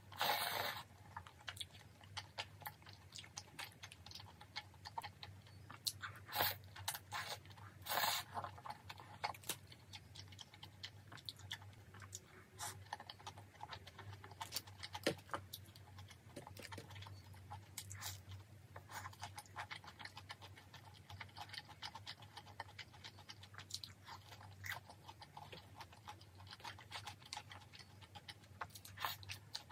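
Close-miked mouth sounds of someone eating chewy tteokbokki rice cakes: soft chewing with small wet clicks, and a few louder bites or slurps near the start and about six, eight and fifteen seconds in, over a faint low hum.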